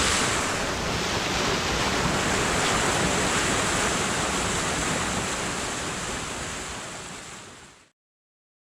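Waterfall rushing, a steady roar of water that fades out over about two seconds and stops near the end.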